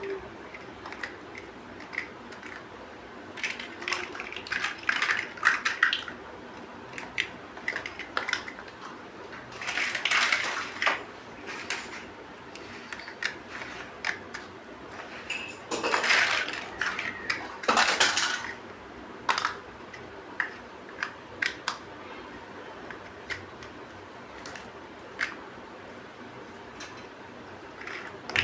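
Plastic building bricks being handled and snapped together: irregular sharp clicks and small knocks, with a few longer noisy bursts of about a second.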